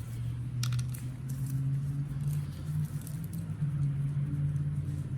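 A steady low mechanical hum, wavering slightly in pitch, with a short click a little under a second in.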